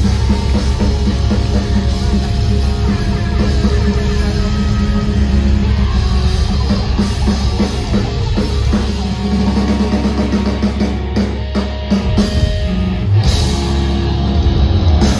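Live rock band playing loud, with drum kit, guitar and heavy bass, heard from within the concert crowd.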